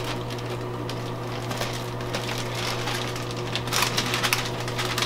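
Thin plastic hydro-dip film crinkling and rustling as it is handled and laid onto the water, in short scattered crackles, clustered about two seconds in and again near the end, over a steady low hum.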